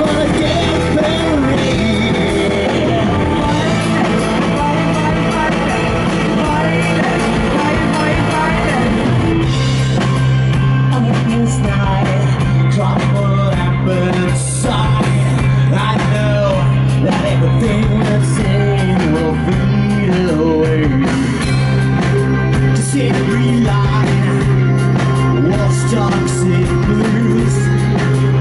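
Rock band playing live with a singer's voice over the instruments; about nine seconds in, a heavy low bass note comes in and holds under the song.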